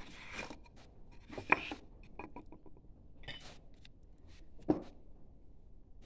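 A hand brushing wood chips off a carved wooden board, with rustling and scraping. Two sharp knocks of wood or a tool against the workbench, about a second and a half in and near the end, are the loudest sounds.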